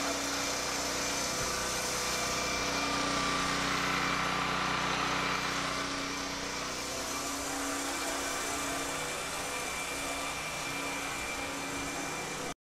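Small engine running steadily at an even speed, a constant drone with a few steady tones in it, cutting off suddenly at the very end.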